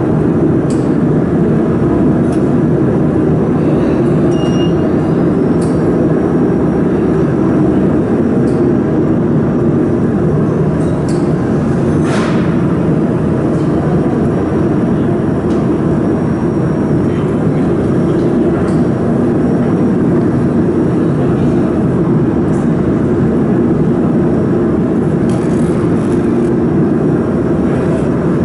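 Steady, loud hum of running workshop machinery: a laser mould welding machine and its water chiller, with a few faint clicks.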